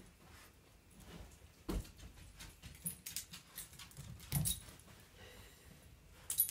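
Small dog jumping down off a bed onto a hardwood floor and back up again: two soft thumps, the first about a second and a half in, the second about four and a half seconds in, with light clicks and jingles in between and a sharp click near the end.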